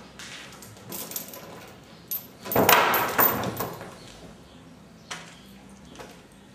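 A few scattered knocks and clicks, with a louder rattling clatter lasting about a second about two and a half seconds in.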